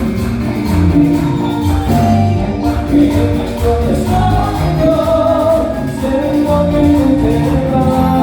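Live cumbia music: a band playing a melody over bass and steady, even percussion.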